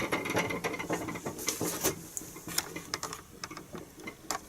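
Scattered light clicks and small rattles of handling, irregular and growing fainter, with no motor running yet.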